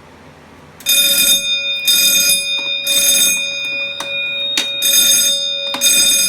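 Wheelock 6-inch fire alarm bell ringing, set off by a pull station during a fire alarm panel's walk test. It starts about a second in and comes in louder pulses about once a second.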